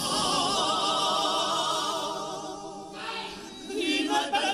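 Comparsa chorus singing a Cádiz carnival pasodoble, holding a long chord with vibrato that fades out about three seconds in. A new sung phrase begins near the end.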